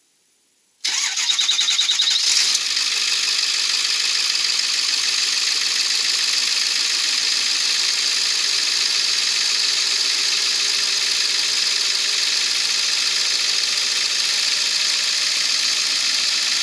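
Ford 7.3-litre Powerstroke V8 turbodiesel cranking and firing about a second in, with a short uneven stretch as it catches, then settling into a steady idle with a freshly replaced glow plug.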